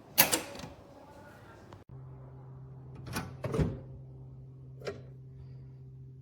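Metal pistol safe being handled: a sharp clunk just after the start, then a few softer knocks and clicks about three and five seconds in. A low steady hum runs beneath from about two seconds in.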